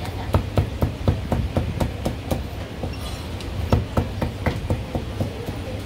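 Cleaver chopping marinated pork tripe on a thick round wooden chopping block: quick, even strikes about four a second, with a pause of about a second midway before the chopping resumes.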